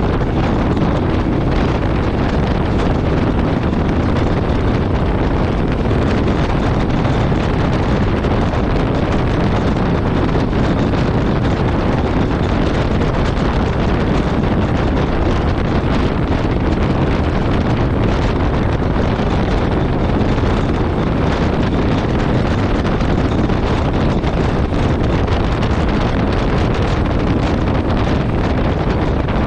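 Steady wind rush over the microphone of a Yamaha Ténéré 700 motorcycle riding at road speed, with the bike's running noise beneath it.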